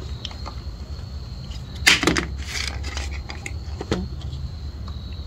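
Scattered metal clicks and clinks of a folding hex-key multi-tool and a small wrench working the fender-bracket bolts on a bicycle fork, with one louder clatter about two seconds in.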